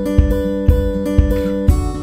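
Background music: acoustic guitar strumming over a steady beat of about two beats a second.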